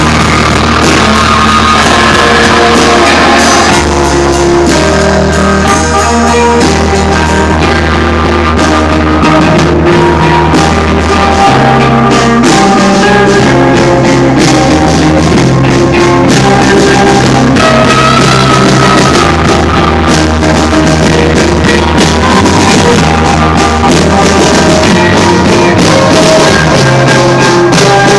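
Rock band playing live, an instrumental stretch of guitar, bass and drums at full volume, with held bass notes that change every few seconds under steady drumming.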